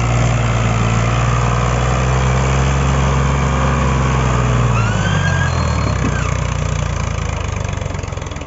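Al-Ghazi (Fiat) tractor's diesel engine running hard, pulling a heavily loaded sugarcane trolley out of soft mud. The engine note holds steady, then drops in pitch about five seconds in and eases off toward the end.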